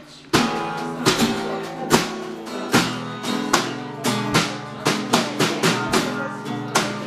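Blues jam of strummed acoustic guitar chords and a snare drum hit with sticks, keeping a steady beat. The playing drops out for a moment at the very start, then comes straight back in.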